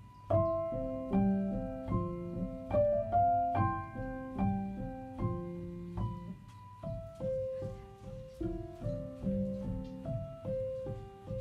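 Background piano music: a gentle melody of single notes and chords struck one after another.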